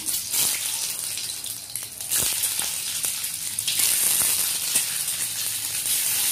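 Halved boiled eggs sizzling in hot oil in a frying pan, with a steady hiss. The sizzle grows louder about two seconds in and again near the middle as more egg halves are laid in, with a few light taps.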